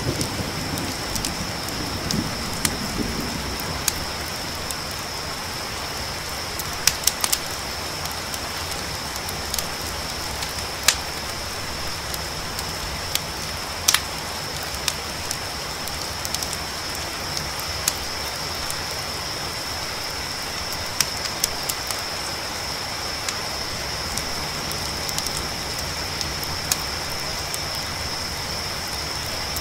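Crickets holding a steady high trill over the hiss of rain, with sharp campfire pops and crackles scattered through. A low thunder rumble dies away in the first few seconds.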